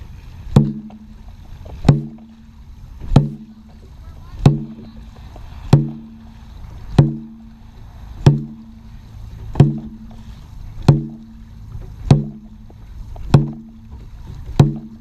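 Dragon boat drum struck with a padded stick at a slow, even beat, about one hit every 1.3 seconds, twelve in all. Each hit has a short, low, pitched ring. It is the drum beat that sets the paddlers' stroke timing.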